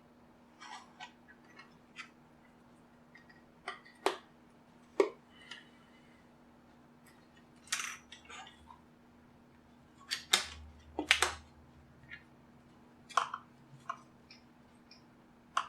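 Irregular clicks, taps and short scrapes of a tool prying at the plastic casing of a JBL Flip 2 Bluetooth speaker, held shut with adhesive. A few louder sharp snaps come about four and five seconds in and again around ten to eleven seconds in.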